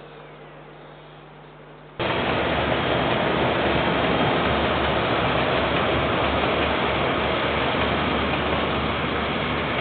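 KiwiRail freight train of container wagons passing close by: a loud, steady rumble and rattle of wagons on the rails with a low, regular pulsing. It starts abruptly about two seconds in, after faint background hum.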